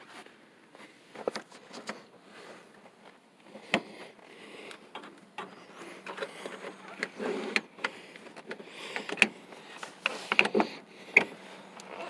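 Handling noise and a string of irregular clicks and knocks as a person shifts about in a light aircraft's cabin holding a phone, with rustling in between; the sharpest knocks come in the last few seconds.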